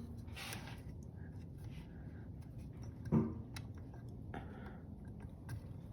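Faint light clicks and taps of small metal gearbox parts being handled as the shift arm is fitted into the engine's transmission, with a short vocal sound about three seconds in.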